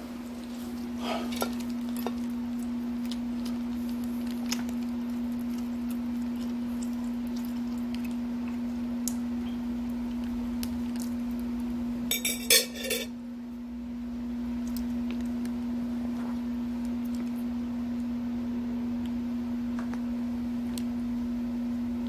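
A steady low electrical hum at one pitch, with a brief clatter of a utensil against a plate about halfway through, the loudest moment.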